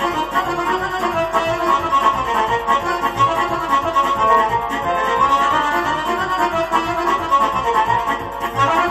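Arranger keyboard playing the backing for a Romanian/Moldovan sârbă folk dance tune, led by an accordion voice, with no trumpet yet.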